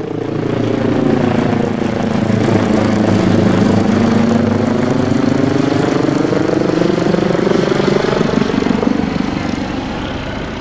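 Helicopter flying low overhead, its rotor and engines running loud and steady. The pitch sags around three to four seconds in and climbs again later.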